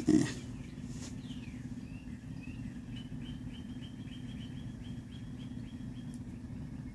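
A thump right at the start, then a steady low mains hum from the guitar amp, picking up the open pickup wiring. Midway a bird chirps quickly, about a dozen short high chirps over some three seconds.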